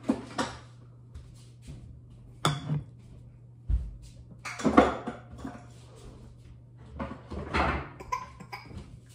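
Kitchen clatter of jars and dishes being handled and set down, with several separate knocks and clinks over a steady low hum.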